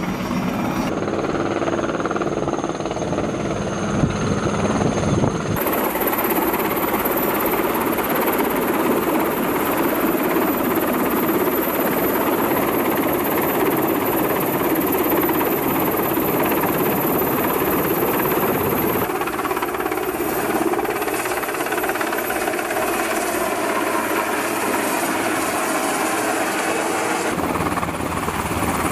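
Helicopter running close by: a steady rush of rotor and engine noise. The sound changes abruptly a few times as the footage cuts between shots.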